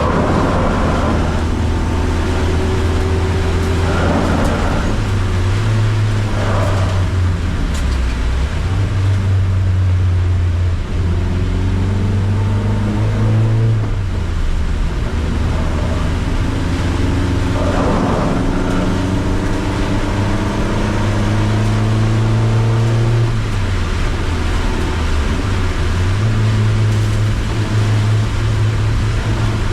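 Car engine under hard acceleration, its pitch climbing then dropping back several times as it shifts through the gears, over a steady hiss.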